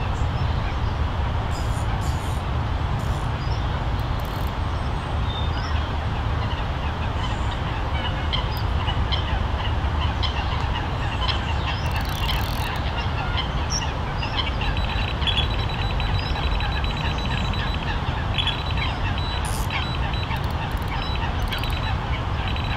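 Waterfowl calling out on the lake, geese honking among them: many short calls scattered throughout, over a steady low rumble.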